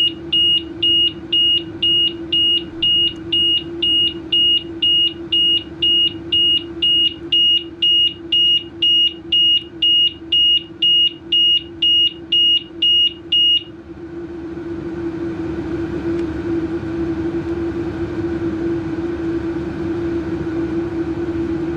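Scooter alarm beeping, a high, even beep nearly twice a second, which stops about 14 seconds in. A steady hum with one low tone runs underneath and carries on after the beeping stops.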